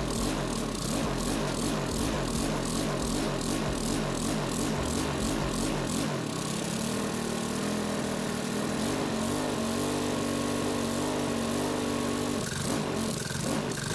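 Honda GCV200 single-cylinder four-stroke mower engine running. For the first six seconds its speed rises and falls a couple of times a second, then it settles to a steady speed.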